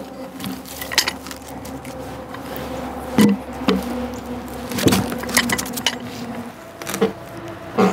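A cedar log being rolled and levered with a cant hook: irregular wooden knocks and clinks of the metal hook, with a quick run of clicks about five seconds in.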